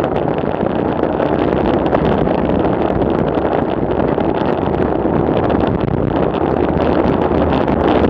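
Wind rushing over the microphone and tyre noise from a bicycle descending a paved road at speed, with many small clicks and rattles over the steady noise.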